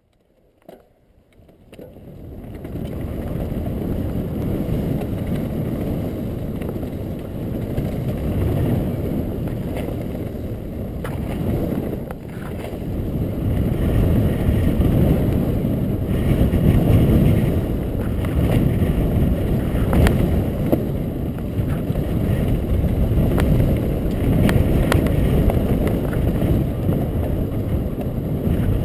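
Mountain bike rolling over a rocky dirt singletrack, heard through the bike-mounted camera's microphone: a continuous low rumble of wind and tyre noise that builds up over the first couple of seconds, with occasional sharp knocks and rattles as the bike hits stones.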